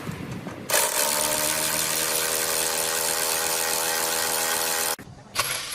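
Pneumatic impact wrench running for about four seconds: a steady pitched whir with loud air hiss that starts sharply under a second in and cuts off abruptly, followed by a few clicks.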